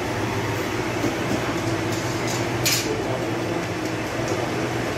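Steady machine roar with a low hum from bakery equipment running beside a Sangak oven. About two and a half seconds in there is one short scrape, as an iron rod works in the oven.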